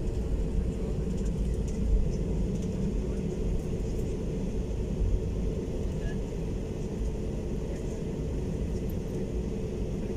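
Steady low rumble inside the cabin of an Airbus A320neo taxiing at low engine power, with a steady engine hum over it.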